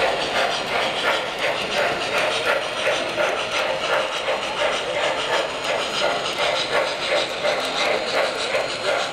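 Model steam locomotives running on the layout, giving off an even, rhythmic chuffing with hiss, a few beats a second.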